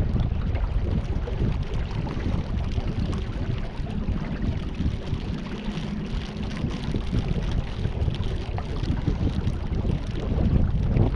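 Wind buffeting the microphone on the open river, a steady low rumble with water noise beneath it.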